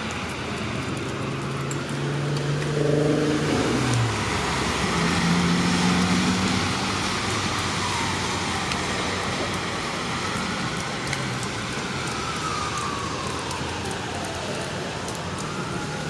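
Traffic on a rain-soaked city street: car engines and tyres hissing on wet pavement over a steady wash of rain. A faint tone slowly rises and falls in the background.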